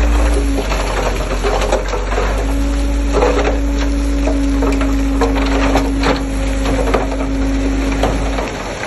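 Heavy diesel earthmoving machinery running, a deep steady rumble with a steady hum over it and scattered clanks and rattles of metal. The rumble drops off near the end.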